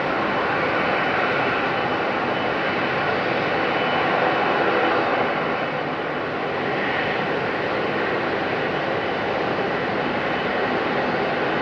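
Airbus A330-200's Rolls-Royce Trent 700 turbofan engines running at taxi power, a steady jet engine noise.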